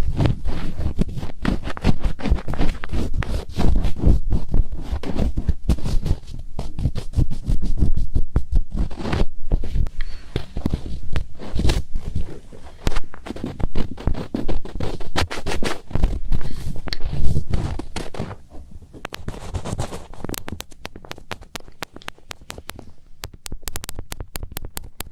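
Fingers rubbing and scratching right on a microphone's ear for finger ear-cleaning ASMR: close, dense scratching and rustling with a low rumble. From about 20 seconds in it turns quieter, with sharp crisp clicks.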